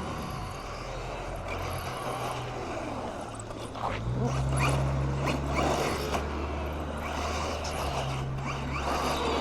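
Electric motor of an MJX 10208 RC truck whining up in several short rising bursts as it is driven, over a steady low hum.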